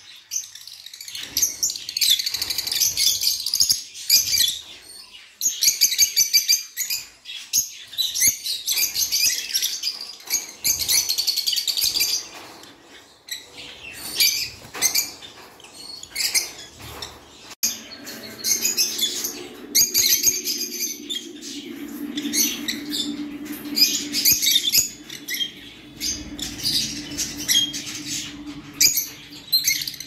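A flock of lutino opaline peach-faced lovebirds chirping in repeated high-pitched bursts, with scattered sharp clicks and flutters. A steady low hum joins about eighteen seconds in.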